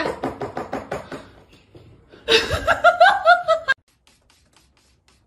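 A person laughing in quick, repeated bursts that fade over the first second; then a louder, high-pitched fit of laughter from about two seconds in that cuts off suddenly near four seconds.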